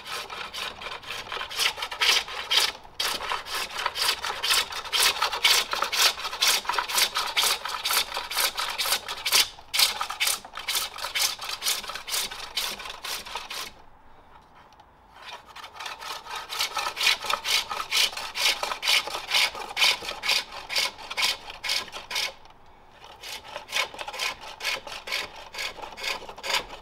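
Hook tool cutting the inside of a wooden bowl on a pole lathe: a fast run of scraping cuts as the bowl is hollowed, broken by short pauses about halfway through and again near the end.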